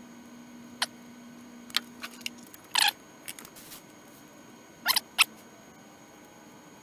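Small clicks and brief squeaks from handling tools and wire while soldering cord terminations, over a low steady hum that stops about two and a half seconds in.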